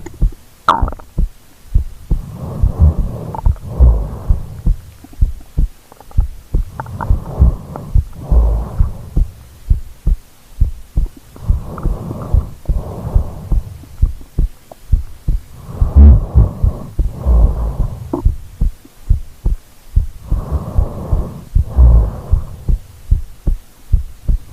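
A sleeping person's heartbeat, picked up through the body by a microphone she is lying against: steady low thumps a little more than once a second. Slow, deep sleeping breaths come in and out about every four to five seconds.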